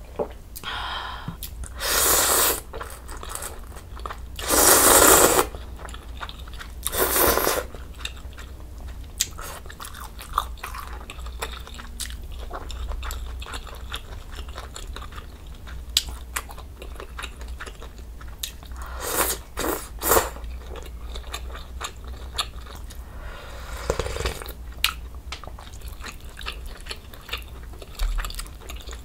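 Close-miked eating sounds: mouthfuls of budae jjigae (noodles, sausage and meatball in broth) being chewed, with small clicks of chopsticks and a wooden spoon. Several louder bursts of slurping or biting stand out, about three in the first eight seconds and a few more after the middle.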